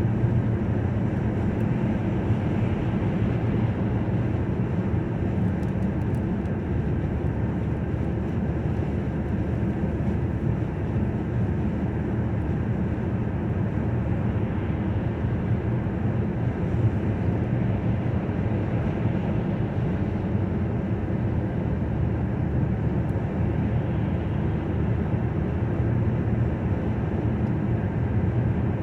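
Road and engine noise of a moving car, heard inside the cabin: a steady low rumble of tyres and engine that holds an even level throughout.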